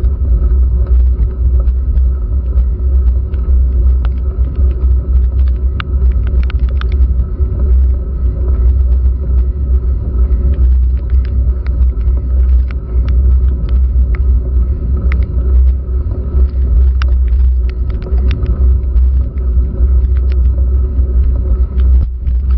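Steady, muffled low rumble of bicycle riding vibration and wind picked up by a bike-mounted GoPro, with a faint steady hum. Raindrops hitting the camera make scattered sharp ticks throughout.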